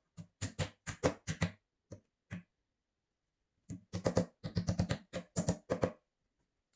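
Hammer tapping on the white particleboard frame of a flat-pack TV bench at a rail joint. A quick run of taps comes first, then two single taps, and after a short pause a longer, faster run.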